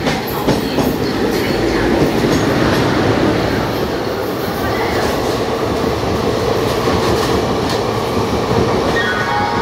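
Passenger train coaches running past at speed: a steady rumble with wheels clicking over rail joints in the first second. A faint whine comes in near the end.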